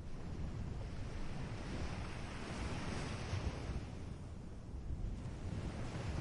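Wind buffeting the microphone: a rushing noise, heaviest in the low end, that swells and eases over a few seconds.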